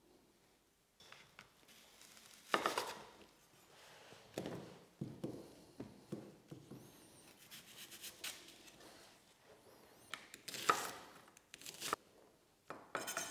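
Chef's knife cutting an onion on a wooden cutting board: irregular knife strokes and taps on the board. The louder strokes come about two and a half seconds in and again about ten and a half seconds in.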